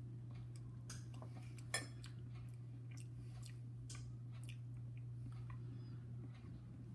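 A man chewing a mouthful of baked beans, soft wet mouth clicks over a steady low hum. Just under two seconds in, a metal spoon clinks down into a bowl.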